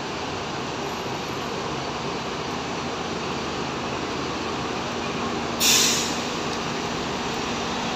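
Steady din of bus engines in a concrete-roofed bus terminal. A little over halfway through, a bus lets out a short, loud hiss of compressed air from its air brakes.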